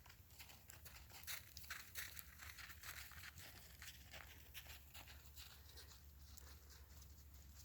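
Faint crunching footsteps in snow, an irregular run of short crackly crunches.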